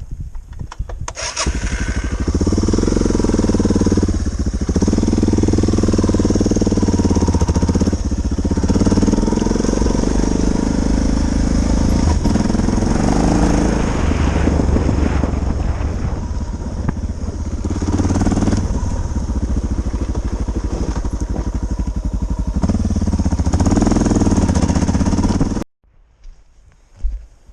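Suzuki DR650's single-cylinder four-stroke engine running, its note rising and falling repeatedly with the throttle. It starts about a second in and cuts off suddenly near the end.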